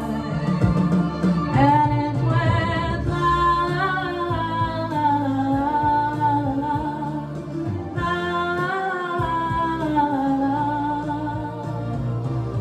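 A woman singing long, wavering held notes with no clear words over instrumental backing.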